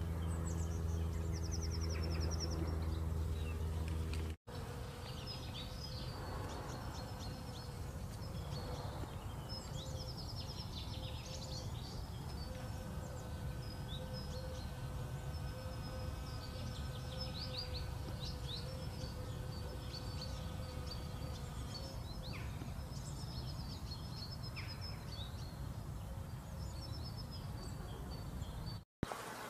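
Bees buzzing with songbirds chirping: a steady low buzzing hum for the first four seconds, then after a sudden break a thinner steady buzz under a run of short, high bird chirps over a rumbling background.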